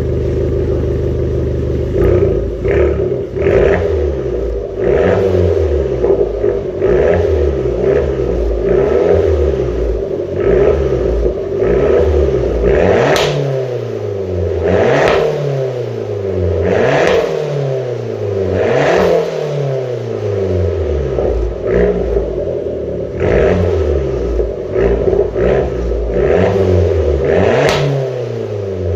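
Abarth 500's turbocharged 1.4-litre four-cylinder engine revved over and over, about every two seconds, with its exhaust popping and crackling as the revs fall back.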